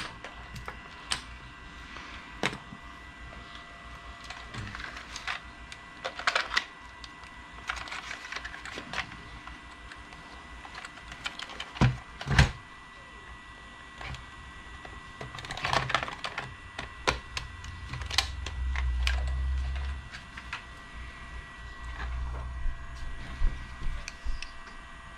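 Scattered small clicks and taps, with a few louder knocks about twelve seconds in, from tools and parts handled on a soldering workbench, over a faint steady high tone.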